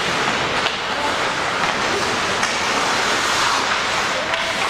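Steady din of spectators at a game, with indistinct voices and a few faint sharp knocks.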